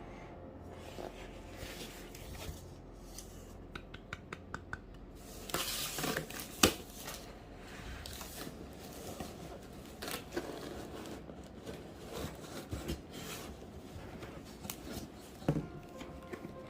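Packaging being cut open and handled: snipping, rustling and tearing, with a quick run of small clicks about four seconds in and one sharp click near the middle.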